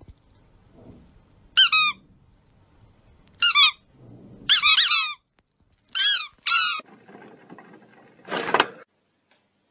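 Squeaky plush chick toy squeezed, giving about six short, high squeaks, singly and in quick pairs, every second or two. A brief noisy burst follows near the end.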